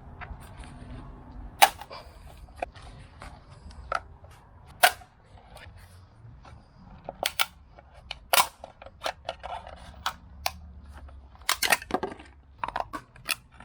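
Irregular sharp clicks and snaps of tools working the housing of a used automatic-transmission filter as it is pried apart. The two loudest come about two and five seconds in, and a quicker run of clicks fills the second half.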